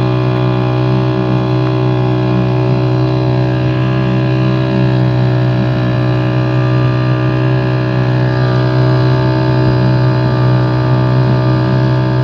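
A small boat's motor running steadily at one constant speed, a loud, even drone with no change in pitch.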